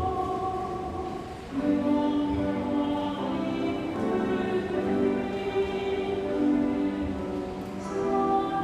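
Church music: a hymn of held chords with singing voices, the chords changing every second or two and growing louder about a second and a half in.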